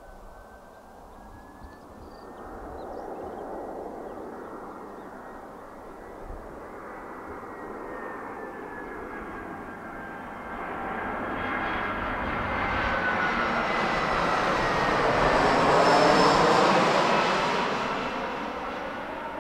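Airbus A320-200 airliner's twin jet engines on final landing approach: a rushing noise with a high whine that grows steadily louder as the plane nears, peaks about sixteen seconds in, then falls away as it passes.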